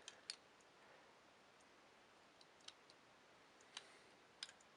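Near silence with a few faint, scattered clicks and taps, the clearest about a third of a second in: a small wood-and-plastic toy engine being handled.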